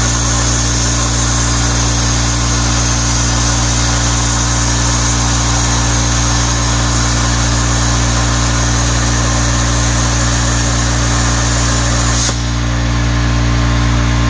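CNC plasma cutter's torch arc hissing steadily as it cuts steel plate, then cutting out abruptly about twelve seconds in as the cut ends. A steady low hum runs underneath throughout.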